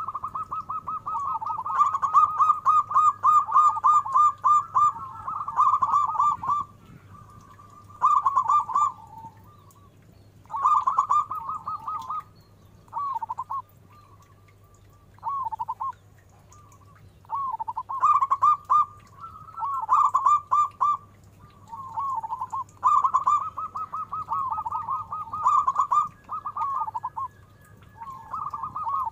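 Zebra dove (perkutut) cooing in phrases of rapid staccato notes, repeated with pauses of a second or two between them. Some phrases are long runs and others are short bursts.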